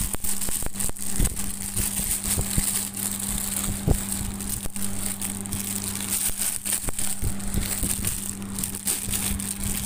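Plastic packaging crinkling and crackling in quick, irregular bursts as a plastic aquarium siphon hose is pulled out of its bag by hand.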